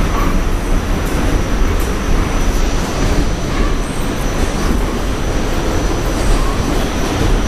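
R46 subway car running at speed, heard from inside the car: a loud, steady rumble and rattle of wheels on rail, with a thin high whine running through it.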